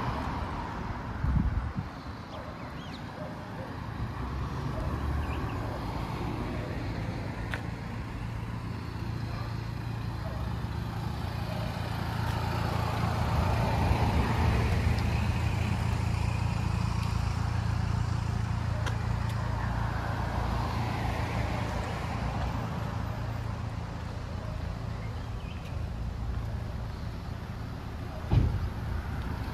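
Street ambience of road traffic: a steady low hum of vehicles that swells as one passes closer around the middle. Two brief thumps, one near the start and one near the end.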